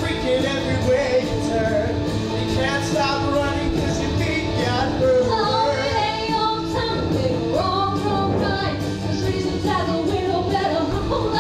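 A musical-theatre song: voices singing over rock backing music with a steady drum beat.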